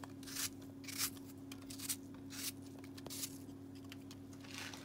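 Kitchen knife slicing pieces off a peeled apple held in the hand, a series of short crisp cuts at an uneven pace, over a steady low hum.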